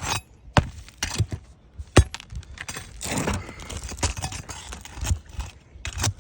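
Roof shingle repair work: a few sharp knocks, then several seconds of scraping and rustling as the asphalt shingles and tools are handled.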